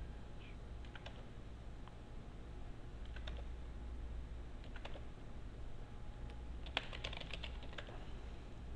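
Computer keyboard being typed on: scattered single keystrokes, with a quick run of keystrokes about seven seconds in.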